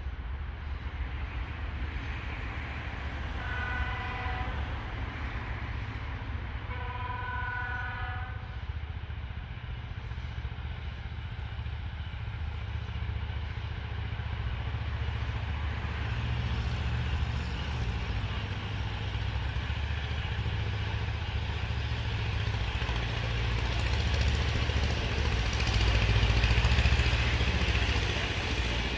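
ChME3 diesel shunting locomotive sounds its air horn twice: a short blast about three seconds in, then a longer, louder one a few seconds later. Under the horn runs the steady low rumble of the diesel, with rolling train noise that grows louder toward the end as the freight train draws closer.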